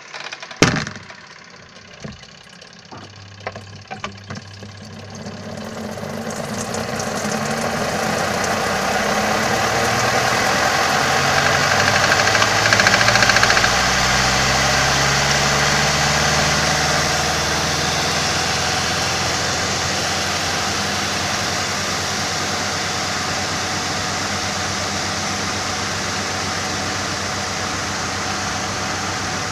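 Washing machine spin dryer heard from inside the drum. A loud knock and a few clicks come as it starts, then the motor spins up with a rising hum over about ten seconds and settles into a steady whirring spin.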